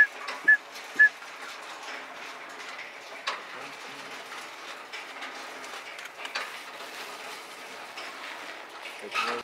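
Three short, high whistled notes about half a second apart, like a duck whistle call blown at circling ducks. After them a steady background hiss carries on.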